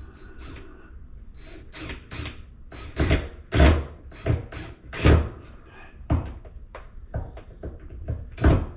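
Clunks and knocks of a Frigidaire dishwasher's door and fittings being handled, with a few heavier thuds among lighter taps.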